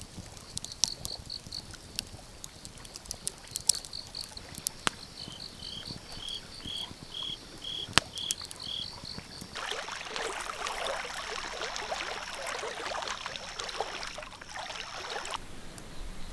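Night insects chirping in evenly repeated high pulses, with a second, lower-pitched chirping insect joining in the middle, while a wood campfire gives off scattered sharp pops and crackles. From about ten seconds in, a denser rasping hiss and a steady high trill sound for about five seconds, then stop.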